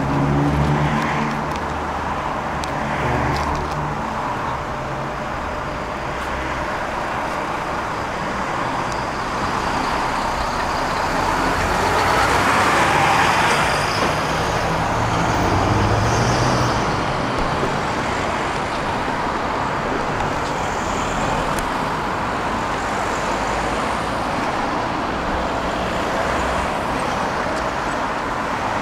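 Road traffic on a busy street: cars driving past in a steady wash of engine and tyre noise, swelling louder as vehicles pass about halfway through.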